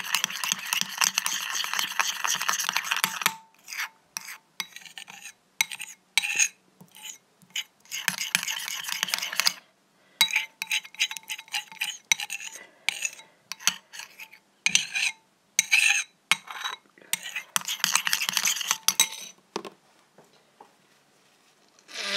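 Stirring and scraping a utensil through glue in a container to mix in acrylic paint for slime. The scraping comes in stretches of a few seconds with short pauses and scattered clicks between them.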